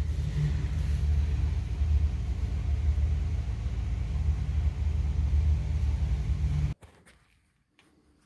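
An engine running steadily, a low rumble with a fainter hiss above it, that cuts off suddenly about seven seconds in.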